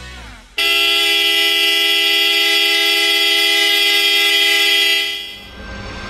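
Wolo Sonic Blast 308-2T electric disc horn pair, a high-tone and a low-tone horn sounding together in one long, steady blast of about four and a half seconds that starts suddenly and fades out at the end.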